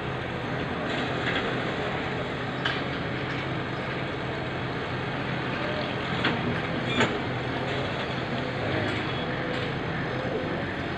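Volvo wheeled excavator's diesel engine running steadily while it digs a trench, with a few sharp knocks from the bucket working the soil and stones.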